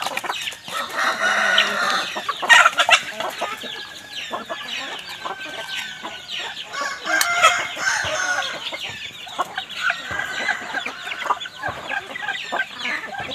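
A flock of free-range chickens clucking and calling over one another, with a rooster crowing.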